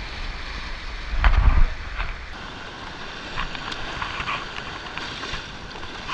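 Surf washing and breaking over shore rocks with wind buffeting the microphone, heard muffled through a GoPro's waterproof case; a louder low rush about a second in.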